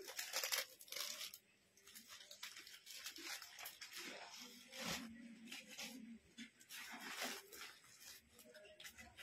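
Denim fabric rustling and rubbing as a kurti is unfolded and handled close to the microphone, in several short bursts.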